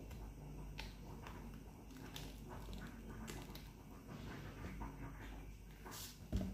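Faint mouth noises of a person biting and pulling at an unpeeled banana with her teeth, hands-free, with scattered soft clicks and a short thump near the end.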